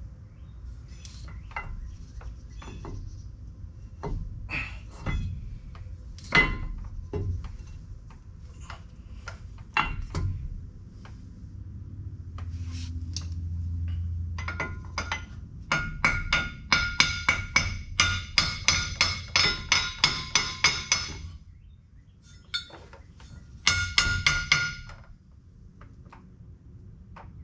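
Hand ratchet wrench clicking in quick strokes, about four clicks a second with a metallic ring, on the U-joint strap bolts of a truck driveline, with a second short burst near the end. Scattered knocks and clinks of metal tools come before it.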